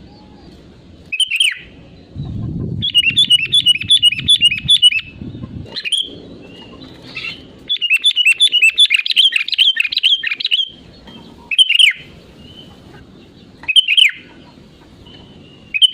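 Sooty-headed bulbul (kutilang) singing. Short bubbly phrases are broken by two long runs of fast, repeated chirping notes, one a few seconds in and one in the middle.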